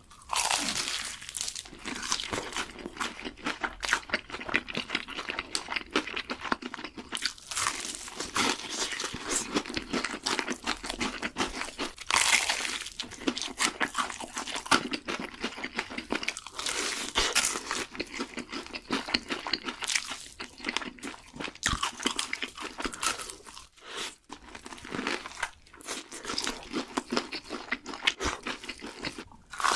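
Close-miked crunching of crispy fried chicken being bitten and chewed, a dense run of crackly crunches with brief pauses.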